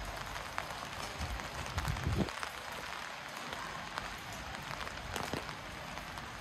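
Rain falling in a steady patter of fine drops, with a few soft footfalls on wet pavement.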